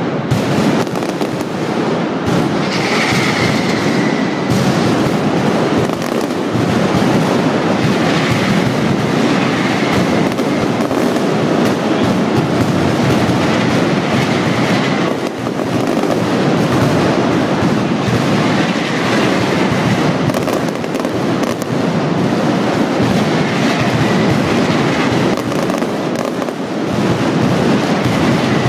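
Mascletà: a dense, unbroken barrage of firecracker bangs, strings of masclets going off in rapid succession, with a brief dip about halfway.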